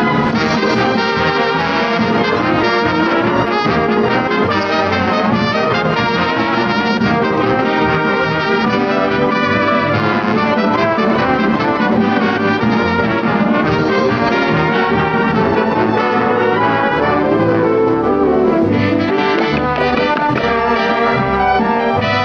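Orchestral cartoon title music with brass to the fore, trombones and trumpets over the orchestra, playing continuously.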